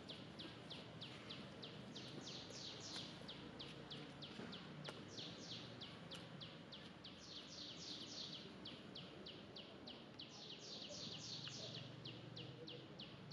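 A bird calling faintly in a long, even series of short high chirps, each falling in pitch, about four a second, over low background noise.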